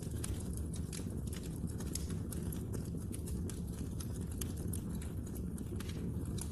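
Wood logs burning in a fireplace: a steady low rumble of flames with dense, irregular crackles and pops.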